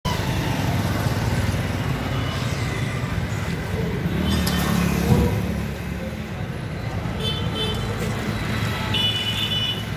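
Street traffic noise: a steady low rumble of passing vehicles, with a few short high-pitched beeps about halfway through and near the end.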